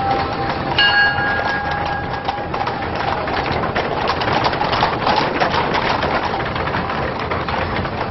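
A struck bell rings about a second in, its tone dying away within a second or two, followed by a dense, busy clatter of many short sounds.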